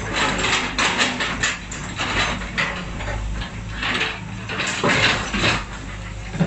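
Excavator bucket scraping and knocking through broken concrete slabs and rubble: a quick, uneven run of clunks, cracks and grinding scrapes of concrete chunks, over the low steady hum of the machine's engine.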